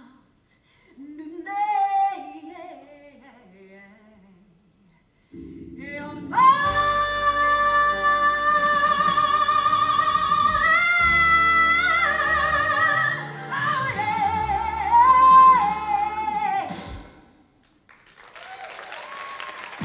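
Live stage singer with band backing. Soft sung phrases give way, about five seconds in, to a loud, long-held climactic line over heavy bass. The music stops near the end and applause begins.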